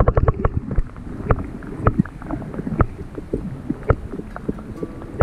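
Underwater sound picked up by an action camera in its waterproof housing: a low muffled rumble, with a quick run of clicks at the start and then scattered sharp clicks and knocks.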